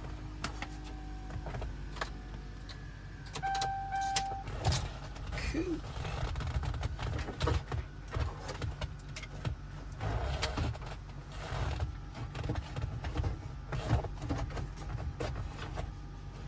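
Handling noises in a car during a dash radio install: scattered clicks, knocks and rattles, with a short beep about four seconds in, over a steady low rumble.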